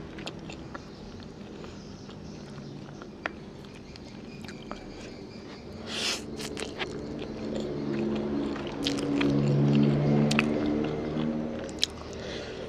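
Close-up chewing and biting of saucy fried noodles with chicken, with short wet clicks and smacks scattered throughout. A low steady drone rises in the background from about halfway and fades near the end.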